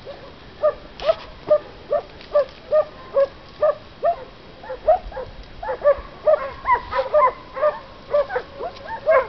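Hunting dog barking in short, high yelping calls, about two a second; from about six seconds in the calls come faster and overlap.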